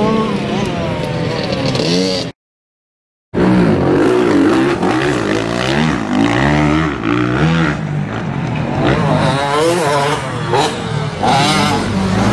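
Motocross bikes' engines revving on the track, their pitch repeatedly rising and dropping back as the riders accelerate and ease off. The sound cuts out abruptly for about a second early on, then the revving resumes.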